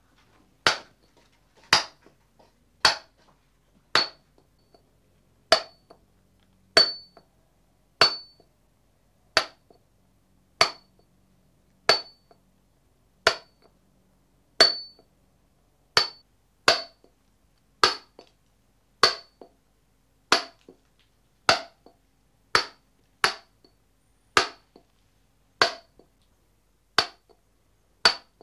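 Stonemason's hammer striking a chisel into stone at a steady pace, about one blow a second, each a sharp clink with a short metallic ring.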